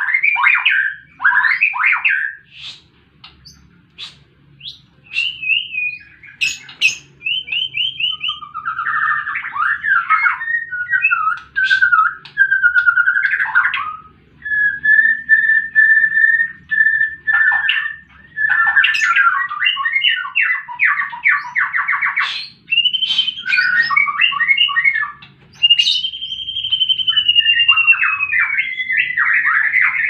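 White-rumped shama (murai batu) singing its combative fighting song. It opens with harsh chattering phrases, moves through varied whistles, a held whistle and fast trills, and near the end gives one long whistle sliding down in pitch.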